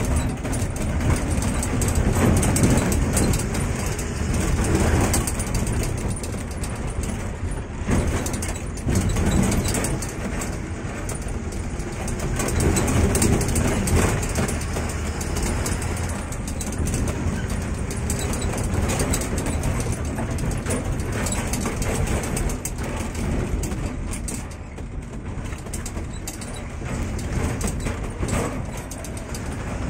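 Inside a moving lorry's cab: the engine running under load and road noise, with steady rattling and clattering of the cab.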